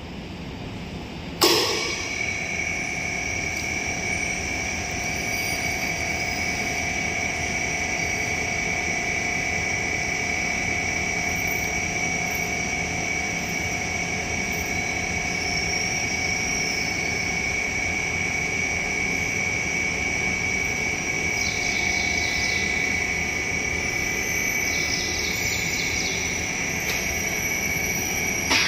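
Electric scissor lift's drive motor switching on with a click about a second and a half in, then running steadily with a high whine as the lift operates.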